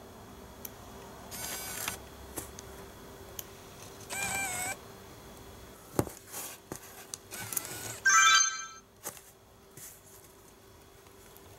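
Nikon Coolpix S7000 compact cameras' zoom-lens motors whir briefly, three times, as the lenses drive in and out, with small button clicks between. The lens of the repaired camera is working after a lens-error fault. About eight seconds in comes the loudest sound, a short electronic chime of stepped tones from the camera as it powers on.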